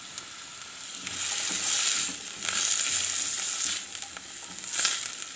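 Diced carrot and green capsicum sizzling in hot oil in a non-stick frying pan as they are stirred with a spatula; the sizzle grows louder about a second in and swells again near the end.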